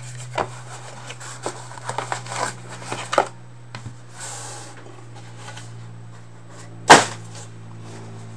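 Hands handling a card box and hard plastic card cases on a table: a run of small clicks and taps, a short rustle about four seconds in, and one sharp knock near the end as a case or the box lid is set down.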